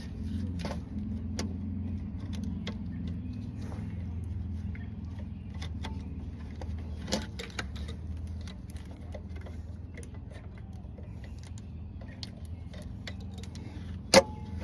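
Hand tools clinking against metal, a socket or wrench being tried on bolts: scattered light clicks and one sharp ringing clink near the end, over a steady low hum.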